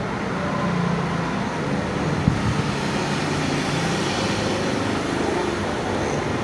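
Steady background road-traffic noise with a faint low engine hum, and a single sharp click about two seconds in.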